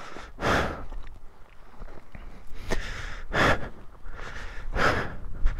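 A person breathing heavily close to the microphone: several loud breaths with short pauses between them.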